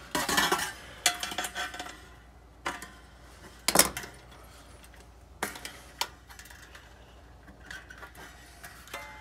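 Scattered metallic clinks and scrapes from handling a dryer heating element's sheet-metal housing while working at the thermostat mounted on it. The loudest clink comes a little under four seconds in.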